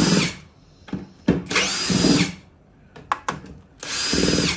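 Power drill-driver with a T20 bit backing out the box-lid screws in short runs. Its motor whines three times, each run under a second long, with small clicks between the runs.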